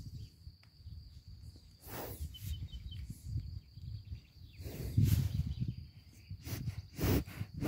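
A horse nosing at a phone's microphone: its muzzle rubbing against the phone and several short puffs of breath, about two seconds in, near five seconds (the loudest), and near the end.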